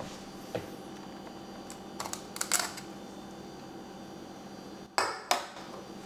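Refrigerator compressor running with a steady hum while the system is charged with refrigerant. A few sharp metallic clicks sound about two seconds in and again near the end as the tap on the R-134a can is handled.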